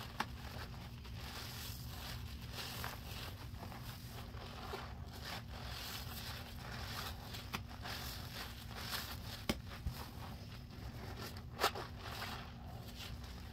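Soapy sponge squeezed and kneaded by hand in thick dish soap and baking soda suds: wet squelching with the foam crackling, and a few sharp clicks, the loudest near the end.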